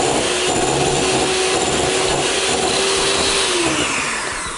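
Electric hand mixer running steadily, its beaters creaming butter and sugar in a glass bowl. About four seconds in it is switched off and spins down with a falling pitch.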